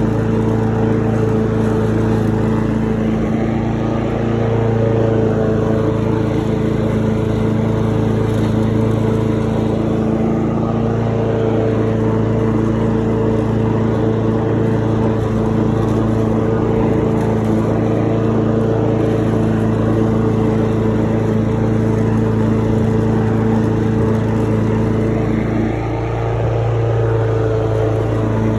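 Lawn mower engine running steadily under load while mowing, its drone holding an even pitch, with a slight dip near the end.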